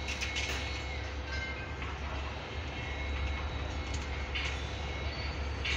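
Diesel locomotive approaching from a distance: a steady low rumble, with a few short, sharp higher-pitched sounds from the rails and wheels.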